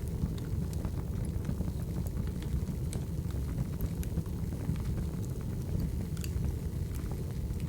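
Wood fire burning: a steady low rumble with scattered sharp crackles and pops of the burning logs.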